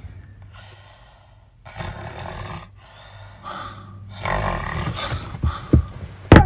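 A woman snoring with her mouth open: a few long, noisy snores about a second apart, getting louder toward the end.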